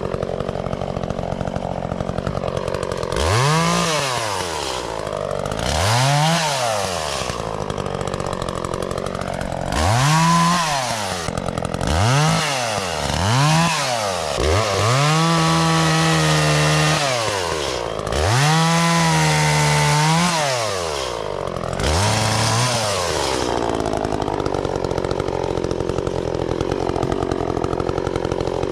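Two-stroke Echo CS-400 chainsaw revved up and let back down several times in quick blips. It is held wide open twice for about two to three seconds each, then drops back to a steady idle for the last few seconds.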